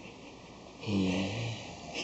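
A young child imitating snoring: one snore with a low buzz and breathy hiss, lasting under a second, about halfway through.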